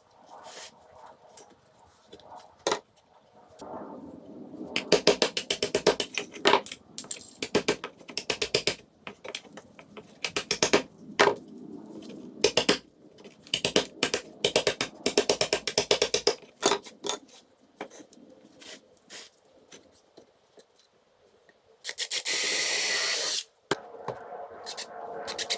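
Wood being worked by hand: runs of quick scraping, rasping strokes, then a short burst of a steady power tool near the end.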